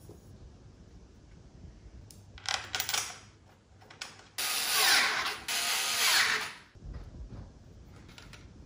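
Tools working the nuts and bolts on a metal mounting plate fitted to a generator frame: a short burst of mechanical clicking about two and a half seconds in, then a louder, longer run of it from about four and a half seconds to nearly seven seconds.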